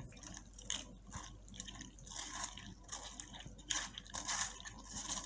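Fingers mashing and squeezing soaked tamarind pulp in a wire-mesh strainer: irregular wet squelches with liquid dripping into the steel bowl below.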